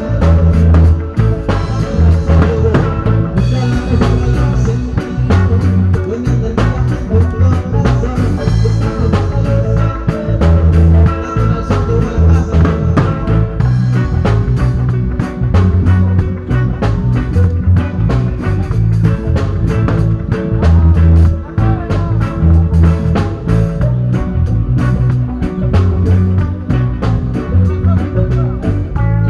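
Live band playing an instrumental passage with a heavy, repeating bass line, drum kit and electric guitar.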